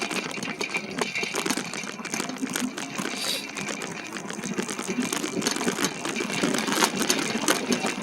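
Bicycle rattling and clicking while being ridden, with a rapid, irregular run of small clicks and knocks throughout.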